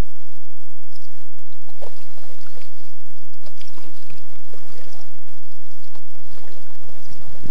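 Kayak paddle dipping into lake water, with irregular splashes and drips.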